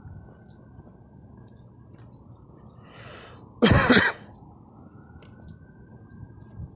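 A single loud, harsh cough about three and a half seconds in, with a short breath just before it and a few short high clicks a second or so after.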